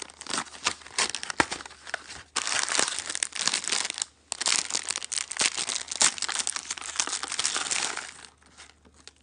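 Gorae-bap cracker box being torn open, then its foil snack bag handled and torn open, with dense crackly crinkling. The crinkling is loudest in the middle and thins to a few scattered crackles near the end.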